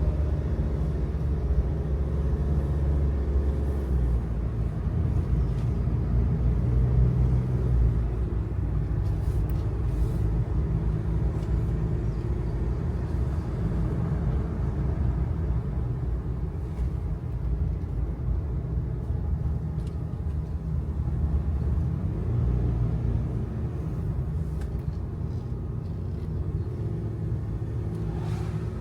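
Kei truck's small 660 cc engine running under load on a mountain climb, heard from the driver's seat. A steady low engine hum whose pitch shifts slightly with throttle sits over road noise, with a few faint rattles.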